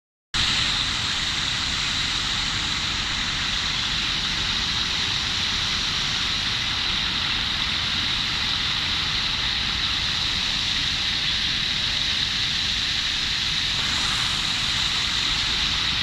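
A small stream running and bubbling, a steady rushing of water with a bright hiss.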